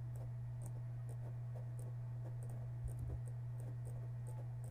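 Faint, irregular computer mouse clicks, one or two a second, over a steady low electrical hum.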